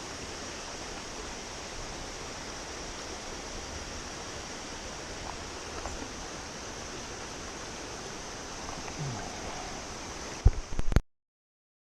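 Steady rushing of river water. About ten and a half seconds in come a few loud low knocks, then the sound cuts off suddenly.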